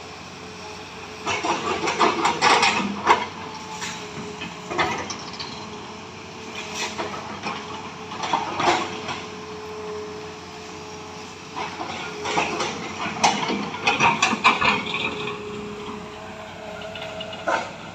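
Heavy tracked logging machinery working: a diesel engine runs steadily under repeated bouts of clanking and squealing steel crawler tracks, with a held whine under the engine.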